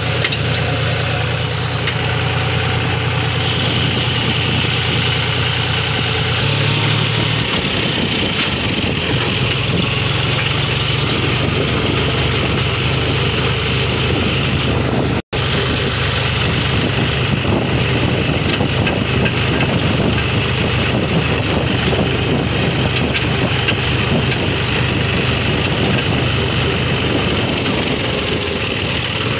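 John Deere 5036D tractor's three-cylinder diesel engine running steadily on the move, heard from the driver's seat while towing a thresher. The engine note shifts a little about seven seconds in, and the sound cuts out for an instant about halfway through.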